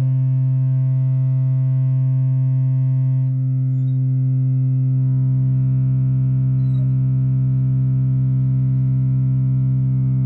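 Sustained synthesizer drone from two oscillators, a pulse wave and a ramp wave, run through a Yusynth clone of the Minimoog ladder low-pass filter. Its tone changes as the filter knobs are turned: the upper harmonics drop away about three seconds in, and the bass fills out a couple of seconds later.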